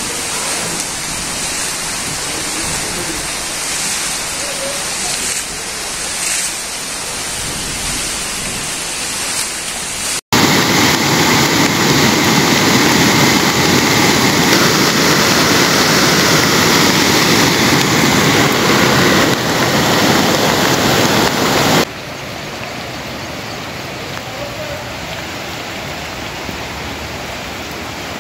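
Steady rushing noise of heavy rain and fast-flowing floodwater. It cuts out for an instant about ten seconds in and comes back louder, then drops to a quieter level a little after twenty seconds.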